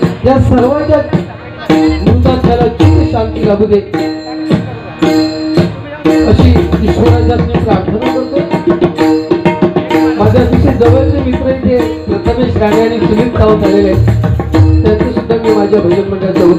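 Live bhajan music: hand drums, tabla-like, play a busy steady rhythm with sharp metallic clicks, over a sustained melody.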